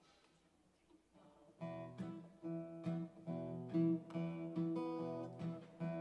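Acoustic guitars strumming the opening chords of a song, starting about a second and a half in after a short hush, with a steady rhythm of chord strokes.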